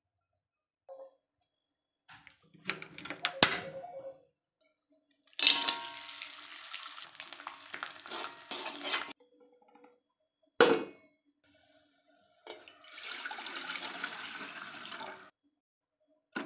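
A run of kitchen sounds: a few clicks and rustles, then oil sizzling in a wok while food is turned with metal tongs. A sharp knock follows, then a steady rush of water running into a saucepan, and a last knock at the end.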